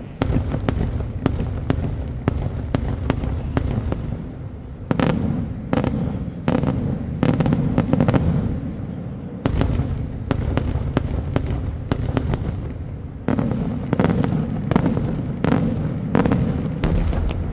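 Daytime fireworks display: a rapid series of loud bangs, a few a second, coming in volleys with a low rumbling echo between them.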